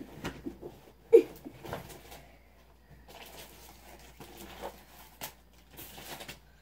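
Scattered soft knocks and rustling of someone moving and shifting close to the phone, with one short, louder sound about a second in.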